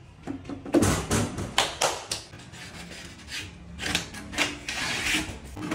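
Short scraping and rubbing strokes of hard material being handled, in two bursts with a lull in between.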